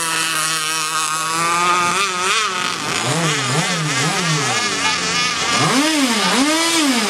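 Radio-controlled racing catamaran's small engine running hard on the water. It holds a steady buzz for about two seconds, then revs up and down: three quick rises and falls about three seconds in, and two longer, higher swells near the end.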